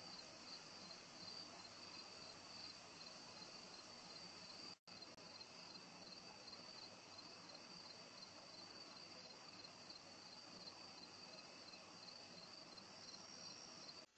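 Faint, steady chorus of crickets trilling at night, a high pulsing trill over a lower one, with a higher trill joining near the end. The sound cuts out for an instant about five seconds in.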